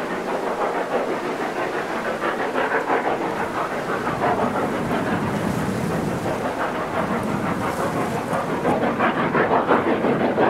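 Steam locomotive working a freight train: a steady stream of exhaust beats blending into a rumbling rush.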